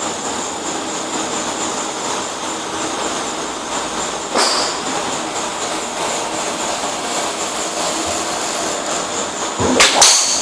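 A golf driver swing and strike near the end: a whoosh and then the sharp crack of a TaylorMade Burner 9.5° driver hitting a teed golf ball, over a steady background rumble. A similar single crack comes about four seconds in.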